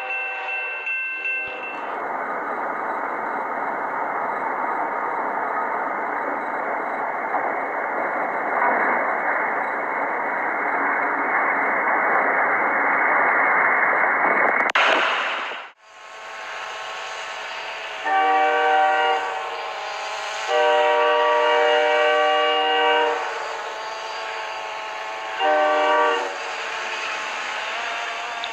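Snowplow train pushing through deep drifts: a steady rushing noise of the train and flying snow, then after a sudden cut, a locomotive horn sounding three blasts, short, long and short, over the running train.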